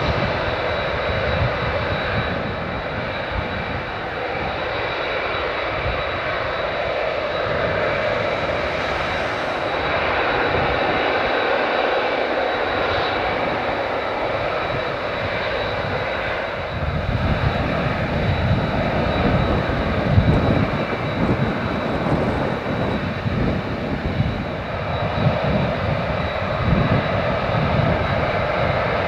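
The Engine Alliance GP7270 turbofans of an Airbus A380-861 running at high power for takeoff: a continuous jet noise with a steady high whine over it. About seventeen seconds in, the deep rumble grows louder and more uneven.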